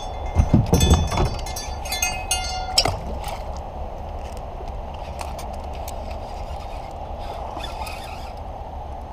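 Steady outdoor rushing noise with a low rumble, with a few loud knocks and a run of sharp clicks and rattles in the first three seconds, like gear being handled close to the microphone.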